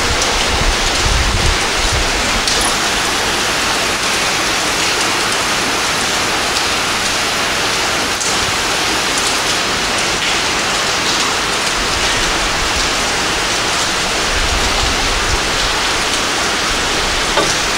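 Heavy rain pouring steadily, a dense even hiss of rain hitting the street and surfaces, with some low rumble near the start and again late on.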